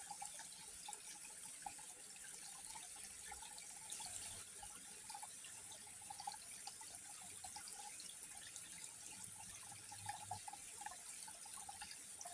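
Faint water trickling and lapping, with small drips and splashes scattered throughout, over a steady high hiss.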